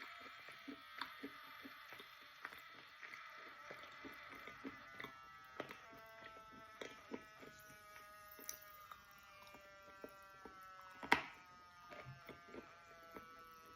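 Close-miked chewing of soaked chalk: a string of small wet clicks and crunches at an uneven pace, with one much louder crunch near the end.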